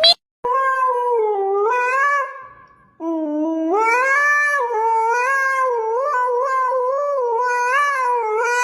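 A cat yowling: two long, wavering calls, the second starting about three seconds in and running about five seconds.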